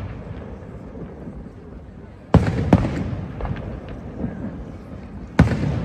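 Fireworks bursting: two sharp bangs close together about two and a half seconds in, smaller cracks after them, and another loud bang near the end, each followed by a rumbling echo.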